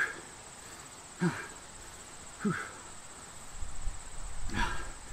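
A man grunting and exhaling hard in short groans that fall in pitch, four in all, the last one longer, from the strain of holding a plank. Underneath runs a steady high trill of crickets.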